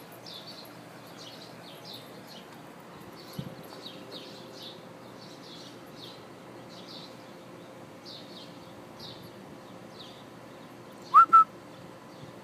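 Small high chirps repeat two to three times a second throughout. Near the end come two short, loud whistled notes, the first sliding up in pitch and the second held level.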